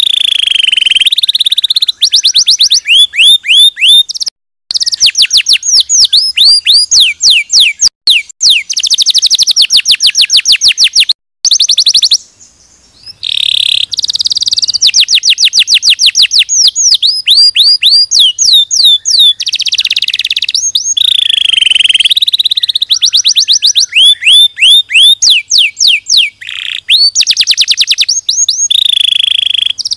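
Domestic canary singing a long, loud song made of rapid trills, each a run of quick falling whistled notes repeated many times over. The song breaks off briefly a few times, with a longer pause a little before halfway.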